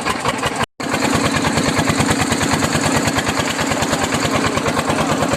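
A small engine running steadily with a fast, even pulse, starting after a brief break in the sound under a second in.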